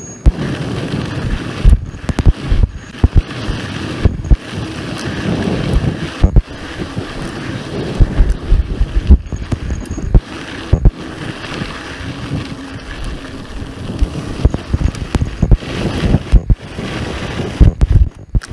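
Wind buffeting the microphone of a camera on a moving mountain bike, with frequent irregular knocks and jolts as the bike runs over the trail.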